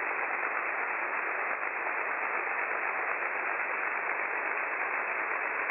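Steady hiss of band noise from a shortwave transceiver's receiver on 6 m SSB, with no station transmitting on frequency. The hiss is narrow and muffled, held within the receiver's voice passband.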